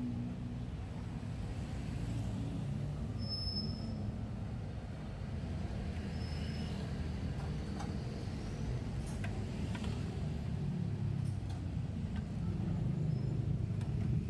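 Steady low rumble of road traffic on a busy city street, with a few faint clicks scattered through it.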